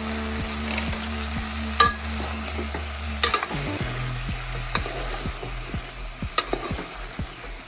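Cut drumstick (moringa) pods and tomato frying in hot oil in a metal pot, sizzling steadily as they are stirred, with scattered sharp clicks and knocks from the stirring.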